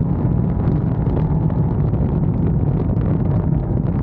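Chrysler 6.4-litre HEMI V8 breathing through long-tube headers and a Corsa exhaust, a steady deep exhaust rumble while the car cruises.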